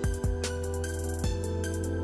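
Background music: sustained tones over a deep bass line, with a low drum beat landing about once a second.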